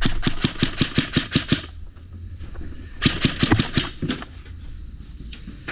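Airsoft guns firing in rapid strings of shots, about six or seven a second: one string lasting under two seconds, then a shorter one about three seconds in.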